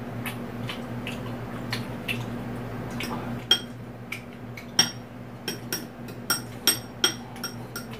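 Eating utensils clinking against dishes: light taps at first, then about ten sharper, ringing clinks in the second half, over a steady low hum.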